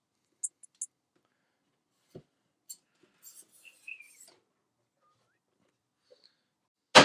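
Scattered light clicks, scrapes and a short scratchy rustle of a cardboard product box being handled and worked open, ending in a single sharp knock.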